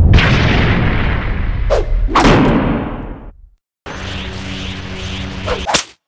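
Cartoon sound effects: a loud crash-and-rumble with two quick whooshes about two seconds in, dying away a little past halfway. After a short gap, a steady buzzing hum lasts about two seconds and cuts off suddenly.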